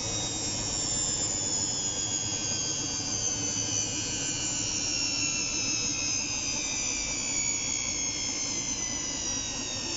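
Electrolux PerfectCare 600 top-loading washing machine spinning: a steady whir with a high whine that falls slowly in pitch as the drum slows. No knocking is heard; the drive pulley's loose bolt has been refixed.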